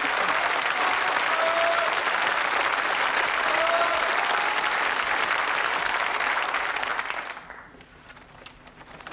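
Audience applauding, fading away about seven seconds in.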